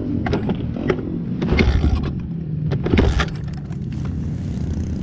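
Pit bike's small engine being kick-started cold: it fires and sputters in short bursts, loudest about one and a half and three seconds in, without settling into a steady idle, a sign that it needs the choke.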